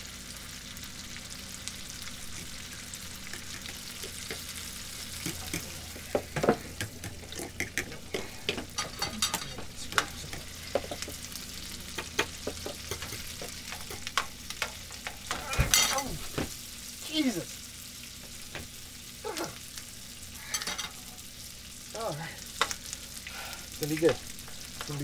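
Food sizzling in a frying pan, with a utensil clicking and scraping against the pan as it is stirred.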